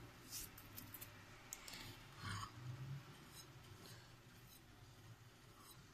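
Near silence with a faint low hum and a few soft, scattered clicks and taps, the most noticeable about two seconds in.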